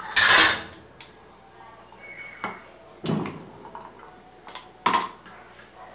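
A metal spoon scraping and clinking in a tin can of sweetcorn as the corn is spooned onto rice in a plastic dish. There is a short loud rasp just after the start, a duller knock about three seconds in and a sharp click near the end.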